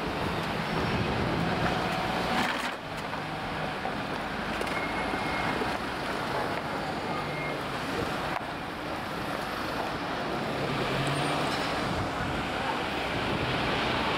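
Steady road traffic noise of a busy city street, with car engines passing.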